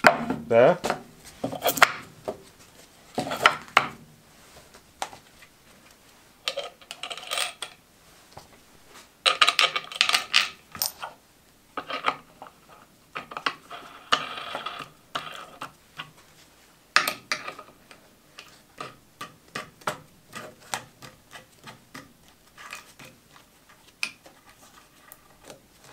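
Irregular metal clinks, knocks and rattles of bolts, washers, wing nuts and an aluminium bar being handled and fitted on a plywood sled. The clatter comes in clusters: loudest about a second in, around ten seconds and around seventeen seconds.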